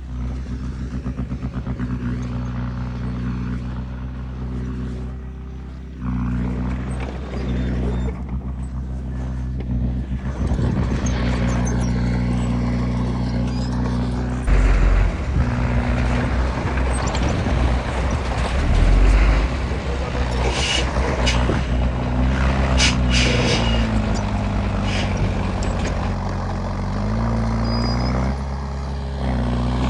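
Heavy construction machinery's diesel engine running hard, its pitch holding steady and then rising and falling as it is throttled in the last several seconds. Short sharp high clanks and squeaks come through in the second half.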